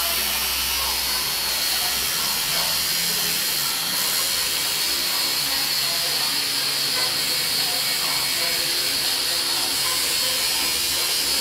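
Electric tattoo machine buzzing steadily as it works on skin.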